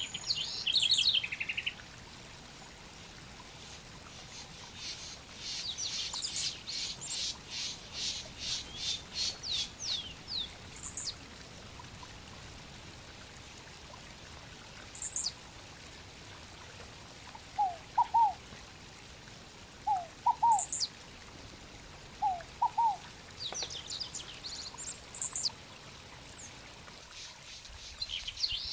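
Small wild birds calling: a quick run of high chirps, about two or three a second, from about five to ten seconds in, scattered high whistled notes, and three short pairs of lower notes a couple of seconds apart past the middle, over a faint steady hiss.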